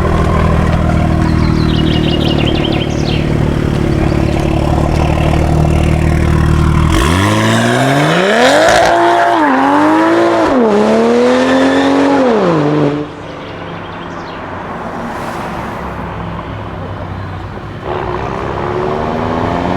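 Toyota GR Supra Mk5 engine idling steadily, then revved up and down several times in quick succession for about six seconds before it drops back to a quieter idle.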